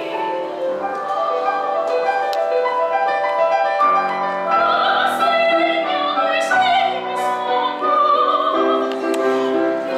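A woman singing a solo sacred song in a trained classical style with wide vibrato, accompanied by a grand piano.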